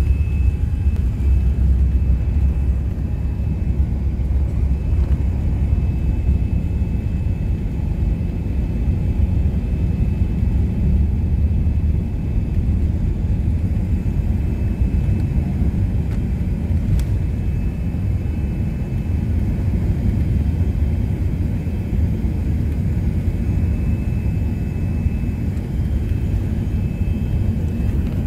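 Jet airliner taking off, heard from inside the cabin: a steady, loud low rumble of the engines at takeoff power and the wheels rolling on the runway, carrying on into the climb after liftoff. A faint, steady high whine runs through it.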